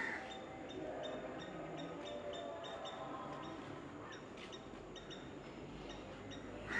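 Faint open-air background noise with a soft, high ticking about two or three times a second. A crow caws right at the very end.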